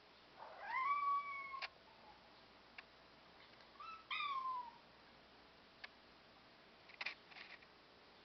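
European Shorthair cat meowing. A long meow about half a second in rises and then holds, a shorter meow around four seconds in falls away, and there is a brief sharp sound near seven seconds. A few faint clicks fall between them.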